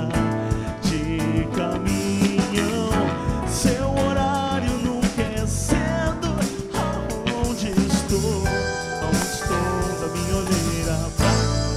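Live band playing Brazilian pop/soul: drum kit, electric bass, keyboard piano and strummed acoustic guitar, with a male voice singing over them.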